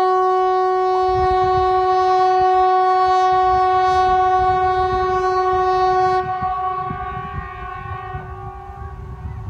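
Hesa Fredrik, the Swedish outdoor public-warning siren, sounding one steady, level tone. About six seconds in it drops and winds down, fading out near the end. It is a single blast of the 'Important message to the public' signal, which is made of blasts about seven seconds long.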